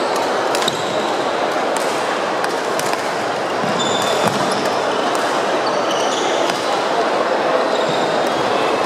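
Sports hall during badminton play: a steady hubbub of play and voices from several courts, with a few sharp racket-on-shuttlecock hits and short high squeaks of shoes on the court floor.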